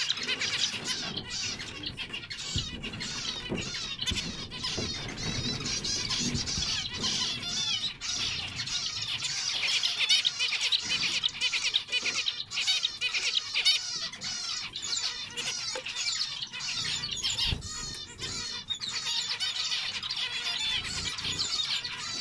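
Many zebra finches calling and singing at once, a dense, continuous chorus of overlapping calls and song phrases.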